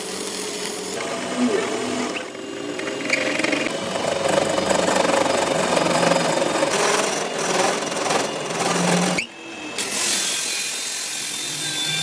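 Workshop power-tool and machining noise, changing texture, with an abrupt change about nine seconds in.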